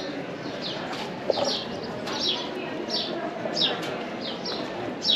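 Small birds chirping: short, high chirps that fall in pitch, about two or three a second, over a low murmur of voices.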